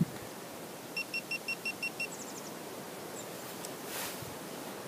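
GoPro action camera in its waterproof housing beeping seven times in quick succession, about six short high beeps a second, the camera's power-off signal.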